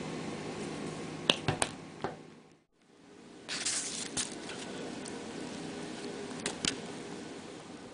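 Steady kitchen room hum with a few sharp clicks, then a short rustling scrape as a pancake is snatched by hand off a paper plate, followed by two more clicks near the end.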